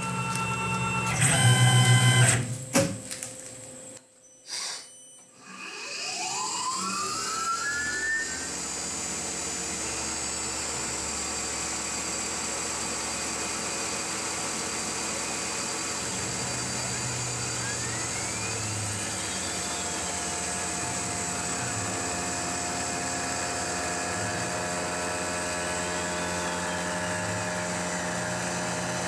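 Tormach PCNC 1100 CNC mill: a couple of seconds of loud machine noise, then the spindle spins up with a rising whine about five seconds in and runs steadily. The end mill makes a light, dry cut around the bore of an aluminium plate.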